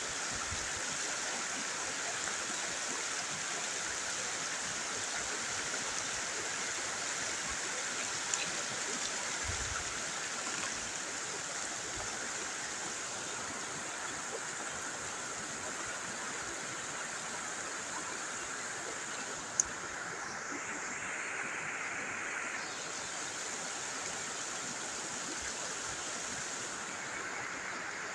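Flowing river water rushing steadily, with one sharp click about twenty seconds in.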